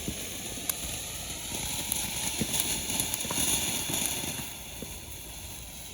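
A consumer firework crackling: scattered small pops and crackles over a steady hiss.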